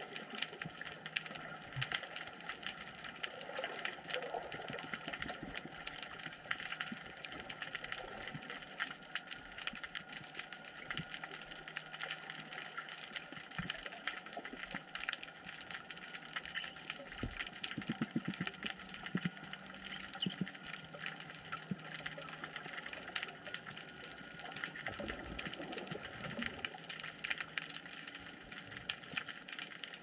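Underwater ambience in a kelp forest: a steady hiss with a dense, continuous crackle of tiny clicks, and a few brief low buzzes.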